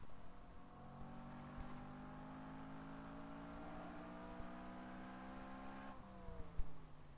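BMW E90 M3's V8 engine heard faintly through a failing microphone, its pitch climbing slowly under acceleration for about six seconds, then falling abruptly near the end.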